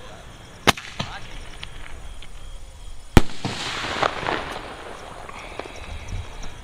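Aerial firework shell bursting: a sharp bang a little under a second in, then the loudest bang about three seconds in as a red star burst opens. The burst is followed by a couple of seconds of crackling sparks.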